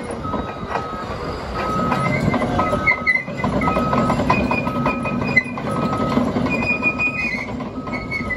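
Cat D6T LGP crawler dozer on the move: steel tracks clanking and squealing over the undercarriage under the diesel engine's running, while its backup alarm beeps about once a second.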